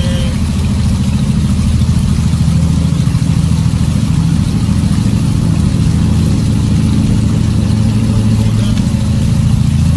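Vehicle driving through floodwater, heard from inside the cabin: a steady, loud low rumble of engine and water noise.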